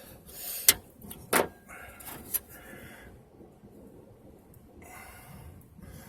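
Sharp clicks and knocks of a windshield chip repair kit's applicator being worked loose from the glass: two loud clicks about a second in and a smaller one about two seconds in, amid soft handling noise, then quieter fiddling.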